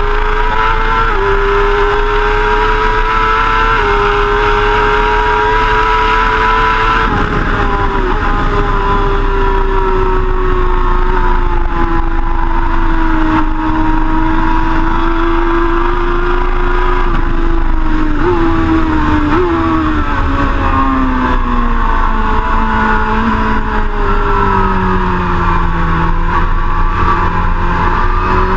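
BMW S1000RR's inline-four engine running hard at high revs, its pitch drifting slowly up and down with a few sudden small jumps.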